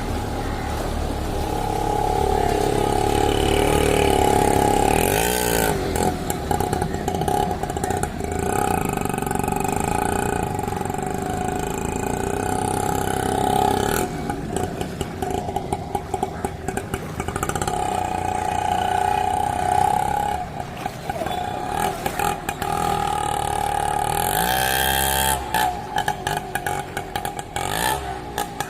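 Engine running steadily, with a pitch that sweeps briefly about five seconds in and again near the end.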